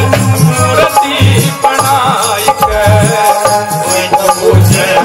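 Devotional folk music: a hand drum beating a steady rhythm, wooden kartal clappers clacking, and a held, wavering melody line over them.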